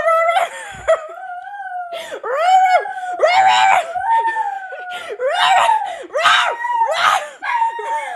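A man wailing in a high falsetto without words: first a long held cry, then a string of short howling cries that swoop up and down, about one every second.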